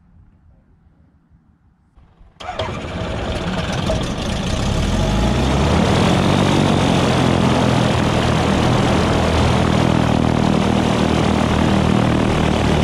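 The Aquila AT01's Rotax 912 S engine starting: it catches suddenly about two seconds in, builds over a few seconds, then settles into steady running with the propeller turning.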